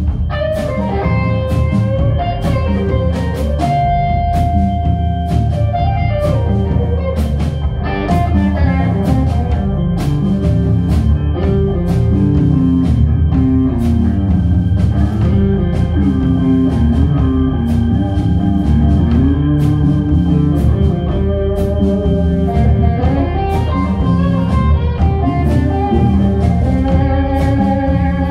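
Live rock band playing an instrumental passage with no singing: electric guitar, bass guitar, drum kit and keyboards, with a melodic lead line and one note held for about a second and a half about four seconds in.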